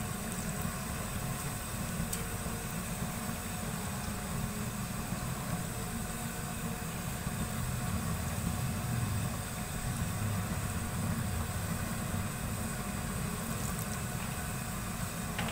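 Steady low rumble of the stove burner heating a large pot of kadhi, with a faint high hiss over it.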